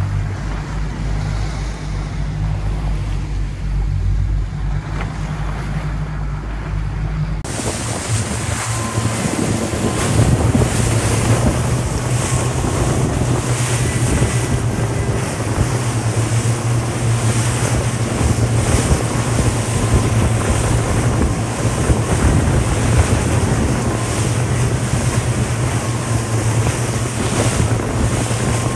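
Wind buffeting the microphone over rushing, choppy sea water, with the low drone of the camera boat's outboard-type motor underneath. The sound changes abruptly about seven and a half seconds in, to a steadier low engine hum and brighter water hiss.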